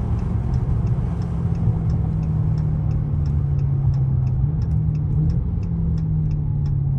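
Inside the cabin of a Hellcat Redeye, the supercharged V8 drones steadily while cruising, with a turn signal ticking regularly over it.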